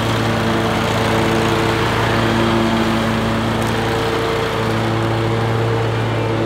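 Toro Grandstand stand-on commercial mower running with its blades engaged, cutting grass: a steady engine hum under the whir of the blades and cut grass.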